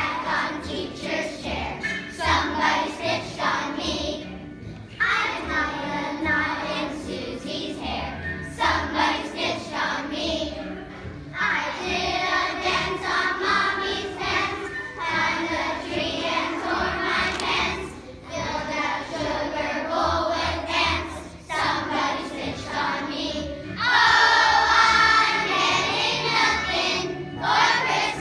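A group of young children singing a song together, in phrases with short breaks between them; the singing grows louder for a few seconds near the end.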